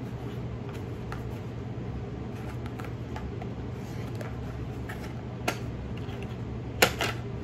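Fingers handling and opening a white cardboard perfume box: faint taps and rubbing, a sharp click about five and a half seconds in and a louder pair of clicks near the end, over a steady low room hum.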